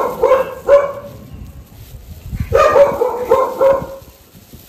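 A dog barking in two quick runs: a few sharp barks at the start, then about five more in a row a little after halfway.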